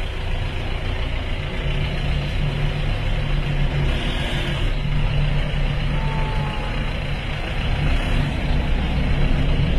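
Safari jeep's engine running, heard from inside the vehicle as a steady low drone, a little stronger in the middle.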